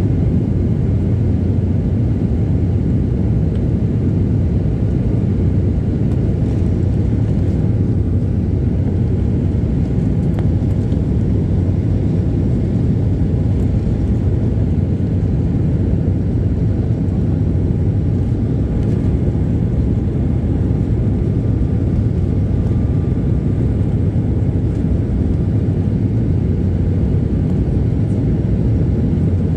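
Jet airliner cabin noise in flight: a steady, unchanging low rumble of engines and airflow heard from inside the cabin.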